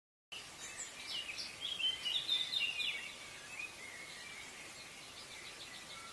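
Songbirds chirping over a steady outdoor hiss, starting abruptly a moment in. The calls are busiest and loudest in the first three seconds, then turn to fainter, sparser trills.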